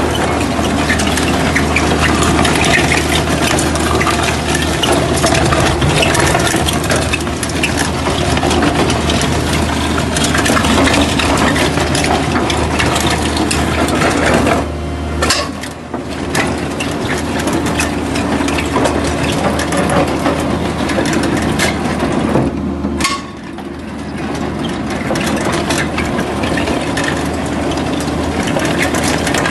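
Hydraulic mini piling rig drilling into concrete: a dense, rough grinding noise over the steady low hum of the rig's engine working under load. The noise drops off briefly twice, about halfway and about three-quarters of the way through.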